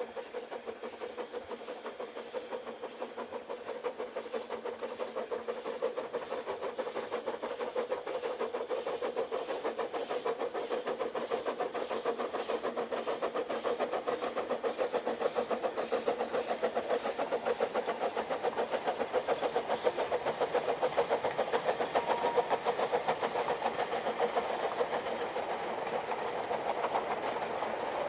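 Narrow-gauge steam locomotive working a mixed train, its exhaust beating fast and evenly and growing louder as it approaches. Near the end the coaches and freight wagons roll past with a clickety-clack.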